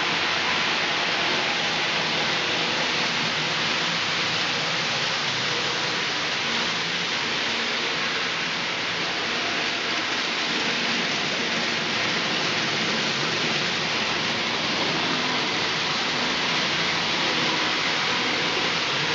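N-scale model trains running on the layout's track: a steady, even rushing noise of small wheels rolling on rail, with a faint hum underneath.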